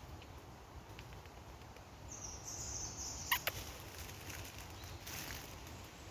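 High-pitched chirping calls from a small wild animal in short stepped phrases, about two to three seconds in, followed by a single sharp click.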